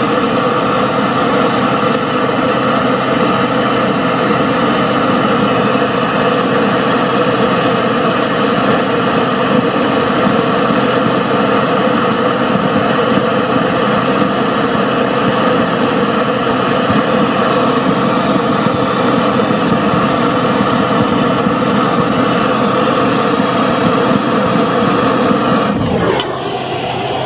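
A machine motor running steadily at one speed, then winding down with falling pitch and stopping near the end.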